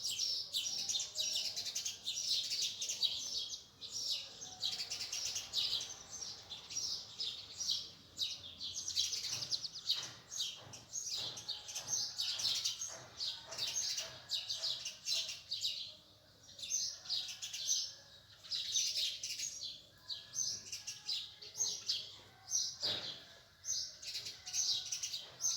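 Many small birds chirping together, rapid high calls overlapping in a dense chorus, with brief lulls every few seconds.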